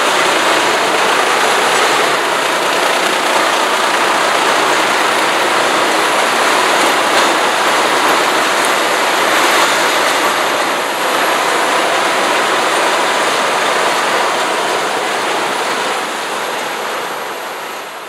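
Truck-mounted Heizohack wood chipper running loud and steady, chipping wood, with a few short cracks along the way. The sound fades out near the end.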